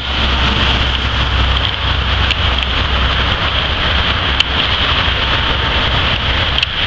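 Motorway traffic passing close by: a steady rush of tyre and engine noise with a low rumble underneath, and a brief sharp click about four and a half seconds in.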